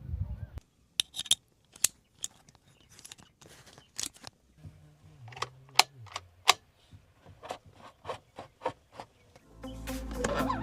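A series of short, irregular clicks and taps, with a faint low tone gliding downward in the middle. Music comes in near the end.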